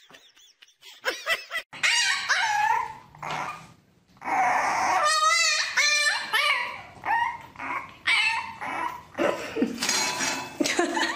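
A French bulldog puppy whining and yipping in a quick run of high, wavering calls that starts a second and a half in.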